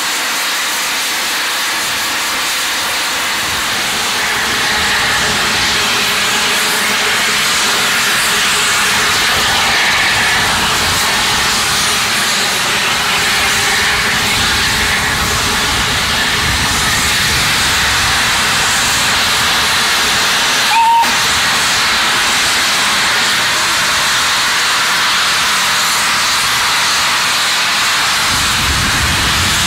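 LSWR T3 No. 563, a Victorian 4-4-0 steam locomotive, stands with steam escaping and hissing steadily. A brief short blip comes about two-thirds of the way through.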